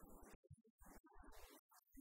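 A woman talking, very faint and choppy, her voice cutting in and out.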